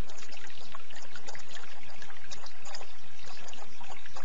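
Running water trickling steadily, a continuous flow of many small splashes.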